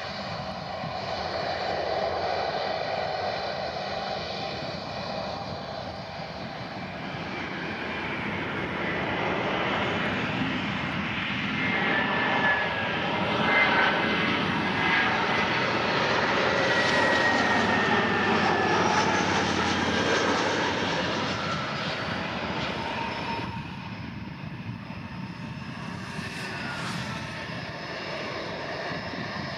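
Jet airliner engines: first an Airbus A319 running on the runway after touchdown, then a TAP Airbus A321-211 with CFM56 turbofans passing low on final approach. The sound grows louder through the middle as the A321 comes by, its engine whine gliding down in pitch. It drops off suddenly about three-quarters of the way in, then settles to a steadier rumble as the aircraft rolls out on the runway with its spoilers raised.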